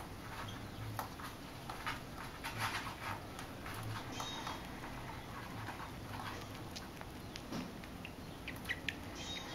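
Soft rustling and many small irregular clicks from a newborn rabbit kit suckling at a doe's belly, with fingers moving in the fur to hold it in place.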